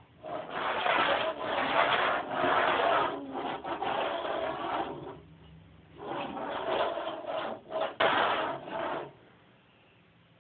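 Rough rasping scrapes in two long spells, with a short pause a little past the middle.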